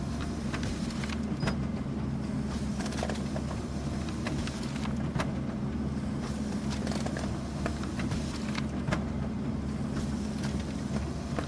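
Office printer running: a steady motor hum, with irregular clicks and ticks from the paper-feed mechanism as sheets go through.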